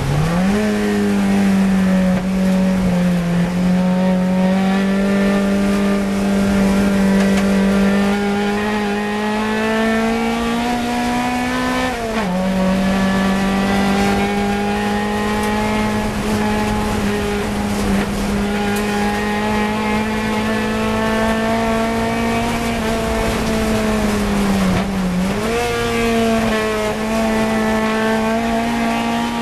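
Fiat 124 Coupe race car's four-cylinder engine running hard at high revs, heard from inside the cabin, its note climbing slowly with speed. The pitch drops sharply at a gear change about twelve seconds in, and dips and climbs back near the start and again about 25 seconds in.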